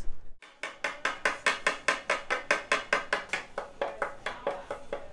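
Rapid, even tapping, about six taps a second, on a chocolate Easter egg mould held upside down over a bowl of melted chocolate, knocking out the excess chocolate.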